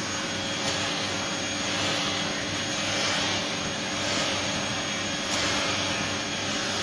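Afloia pet grooming vacuum with clipper attachment running steadily: a constant suction hiss with a faint motor hum, swelling and easing slightly in loudness.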